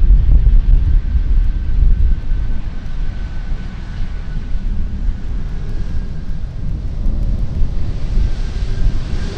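Jet engines of a Turkish Airlines Airbus A330-300 (Rolls-Royce Trent 700s) running as the airliner rolls along the runway, a steady whine over a deep, fluctuating rumble. Wind buffets the microphone.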